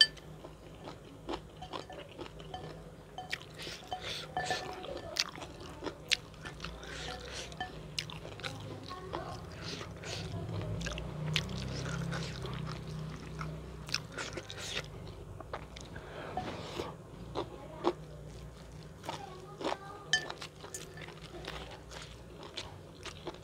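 A person eating close to the microphone: wet chewing with frequent sharp, irregular crunches and bites.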